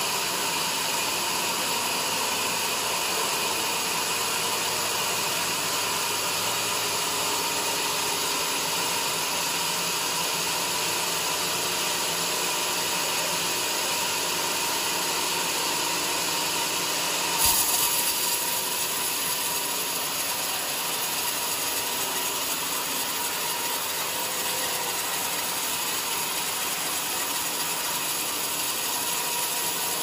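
Large band-saw headrig running and ripping a jackfruit log lengthwise, a steady machine and blade-in-wood noise. One sharp knock a little past halfway.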